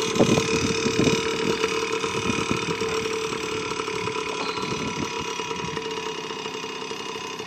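Small engine of a child's mini dirt bike running at low speed, gradually getting quieter as the bike moves away.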